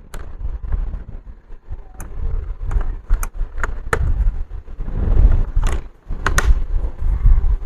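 Hands handling laptop parts while a screen is set up for testing: a series of sharp plastic clicks and knocks, bunched around the middle and again later, over a low rumble of handling noise.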